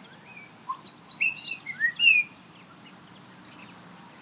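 A small songbird singing one short phrase of varied, quick whistled notes, some sliding up or down in pitch, that stops a little over two seconds in.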